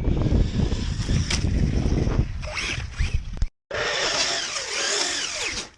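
Traxxas Slash RC car running through ditch water: its motor whine rises and falls over a dense rush of noise, with heavy low rumble in the first stretch. The sound cuts off abruptly about three and a half seconds in and resumes a moment later.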